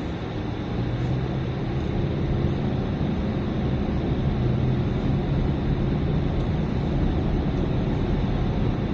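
A car driving, heard from inside the cabin: steady engine hum with tyre and road noise, growing a little louder about a second in.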